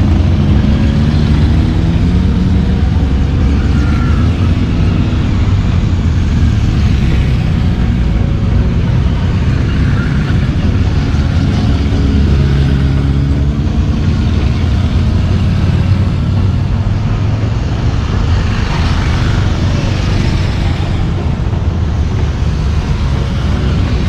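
A string of motorcycles, sport bikes and large touring cruisers, riding slowly past one after another, their engines running in a continuous rumble that rises and falls in pitch as each bike goes by.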